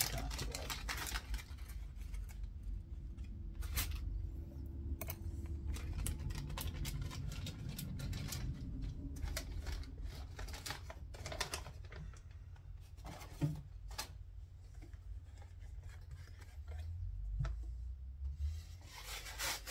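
Irregular scratchy rubbing and scrubbing with scattered light clicks, as lapped steel scope ring halves are cleaned of lapping compound by hand.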